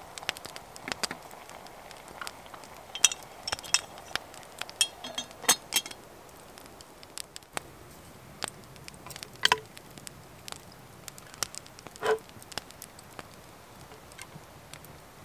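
Small wood fire crackling in a twig stove, with scattered sharp clicks and pops. About three to five seconds in comes a cluster of light ringing clinks, and there are a few duller knocks later on as cooking gear is handled.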